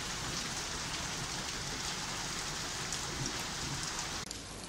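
Heavy rain falling steadily on a flooded street, a dense even hiss of drops. About four seconds in it drops abruptly to a quieter, duller rain hiss.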